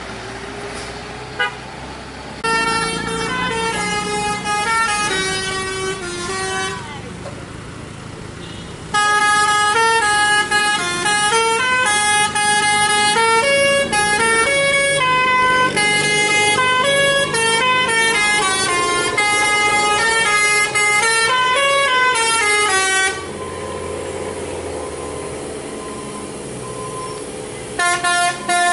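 A truck's multi-tone musical air horn, of the Indonesian 'telolet' kind, playing a tune of quickly changing notes: a short run, a brief gap with engine and traffic noise, then a long run of about fourteen seconds, and the tune starting again near the end.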